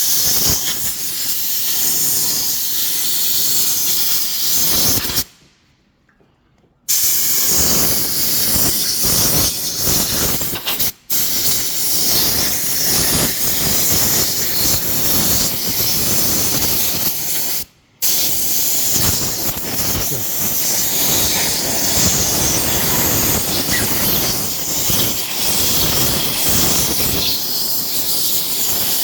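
Compressed-air blow gun hissing loudly as air is forced between a motorcycle handlebar grip and the bar to work the grip on. The air cuts out for a second or so about five seconds in and twice more, briefly, near 11 and 18 seconds.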